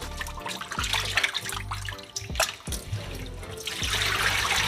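Running water, growing louder near the end, over background music with a steady bass beat.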